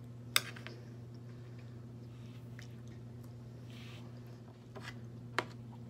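A person chewing a mouthful of food, with a few sharp clicks, the loudest about half a second in and another near the end, over a steady low hum.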